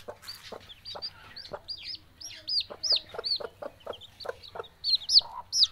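Young chicks peeping in short, high, arched calls, several a second, growing louder near the end, over a mother hen's low, soft clucks.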